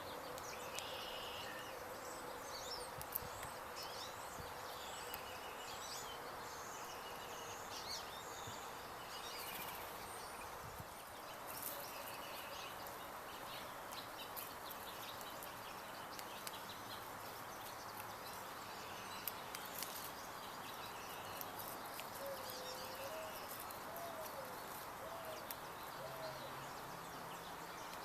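Small birds chirping and calling on and off over a steady outdoor background hum, with scattered sharp ticks. A lower, wavering call comes briefly near the end.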